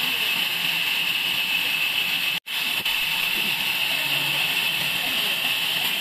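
Sawmill band saw running with a steady hiss, cutting out for an instant about two and a half seconds in.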